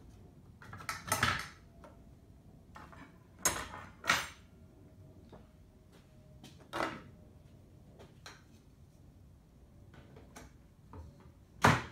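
Scattered knocks and clinks of rods and 3D-printed plastic parts being handled and fitted together: about five sharp ones spread apart, the loudest near the end.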